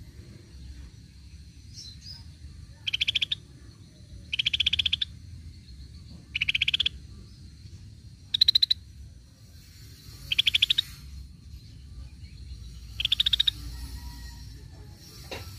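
Scaly-breasted bulbul calling: six short, rapid rattling trills, each about half a second long and roughly two seconds apart.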